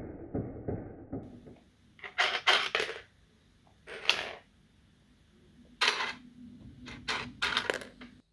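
Hard red plastic game pieces clattering against the toy's plastic board and the floor as a cat paws at them, in short bursts: a quick run of clacks, single clacks, then another run near the end.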